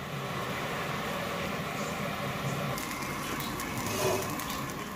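Food frying in a pan on the stove, a steady sizzle with sharp crackles and pops coming in from about three seconds in.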